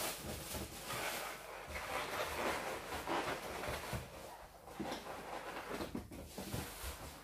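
Inflated latex balloons being handled and pressed together, rubbing and rustling irregularly with a few soft knocks.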